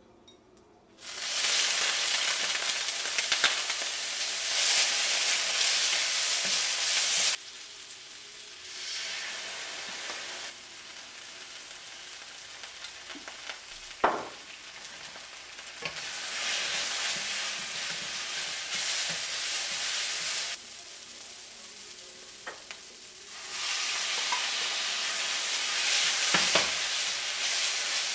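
Glass noodles and bean sprouts sizzling loudly in hot oil in a wok as they are stir-fried with a wooden spatula. The sizzle starts about a second in and rises and falls in loudness, with one sharp knock in the middle.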